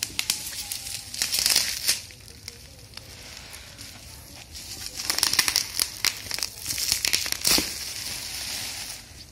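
Plastic packing wrap crinkling and crackling in irregular bursts as wrapped tripod parts are handled and slid out of a cardboard box. The loudest bursts come about a second and a half in and again from about five to seven and a half seconds.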